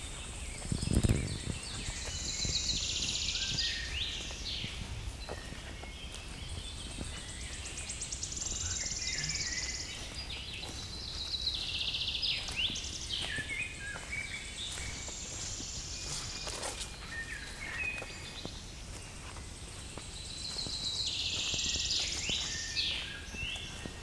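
Forest songbirds singing: several loud, high, trilling song phrases of two to three seconds each, repeated every few seconds. Footsteps on a forest track, with a heavy thump about a second in.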